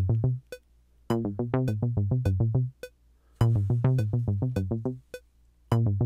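A step-sequenced monophonic synth line playing back: quick, evenly spaced sixteenth notes on a HALion synth patch, in phrases of about a second and a half with short gaps between them. Light drum-machine ticks run underneath.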